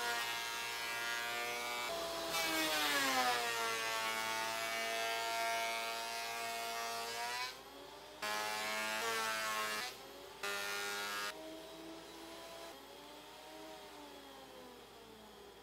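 Benchtop thickness planer running with a motor whine that sags in pitch as wood strips feed through the cutterhead and the motor takes the load, then levels off again. This happens twice. The sound drops away briefly twice in the middle.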